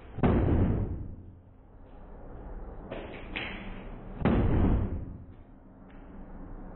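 Heavy blows against a tiled shower wall being demolished: two loud strikes about four seconds apart, each with a short ringing rumble, and lighter knocks in between.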